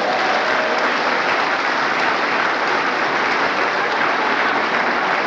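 Audience applauding steadily right after a brass band piece ends, with a last brass note fading out in the first second.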